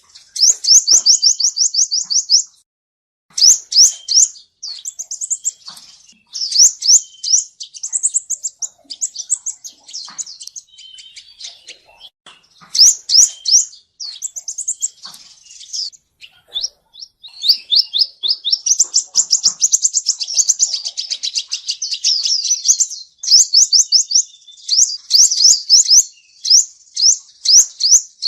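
Male sunbird singing: fast runs of high, thin, sharply repeated notes and trills, broken by brief pauses.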